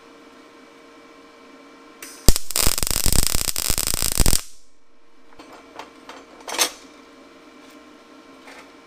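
MIG welder tack-welding a steel angle-iron bracket: about two seconds of dense arc crackle that starts a couple of seconds in and cuts off sharply when the trigger is released. A few light clicks and knocks follow.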